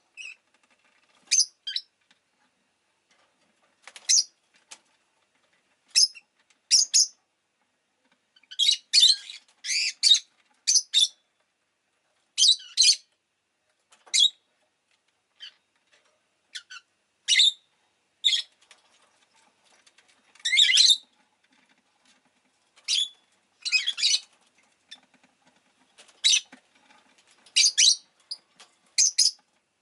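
Rosy-faced lovebird chirping: short, sharp, high-pitched calls at irregular intervals, some in quick clusters of two or three, with quiet gaps between them.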